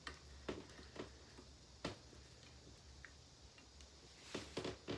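Scattered light clicks and taps from hand tools and plastic parts of a handheld vacuum being worked on. A few single clicks come early, a sharper one about two seconds in, and a quick cluster near the end.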